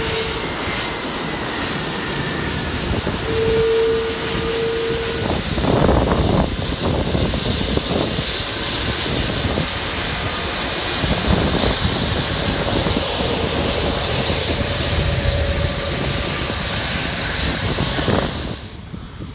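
Jet engines of an SAS Airbus A330-300 running at taxi power as the airliner taxis slowly past close by: a loud, steady high whine over a low rumble. The sound drops off suddenly just before the end.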